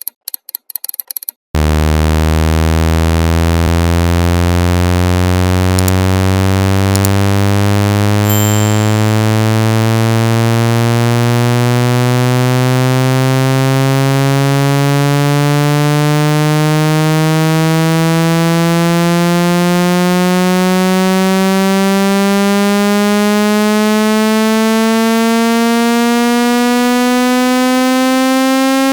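Rapid high-pitched ticking for about a second and a half, then a loud, buzzy synthesized tone starts abruptly and sweeps slowly and steadily upward in pitch from a low hum. It is a speaker-cleaning tone, played to vibrate a phone speaker and push out trapped water.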